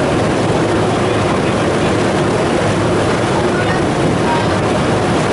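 Passenger ferry under way: its engine runs steadily, with water rushing along the hull.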